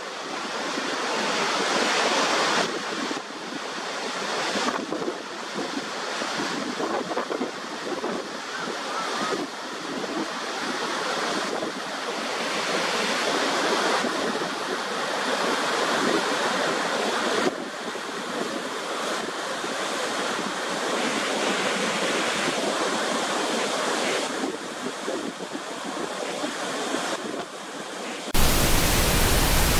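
Roar of Niagara's Horseshoe Falls heard from the brink: a steady rushing of falling water, with wind buffeting the microphone in gusts. Near the end it cuts abruptly to a flat, louder, steady hiss.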